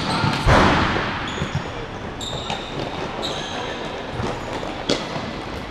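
Futsal ball struck hard about half a second in, ringing through a large sports hall, and hit sharply again near the end, with short high squeaks of players' shoes on the court floor in between.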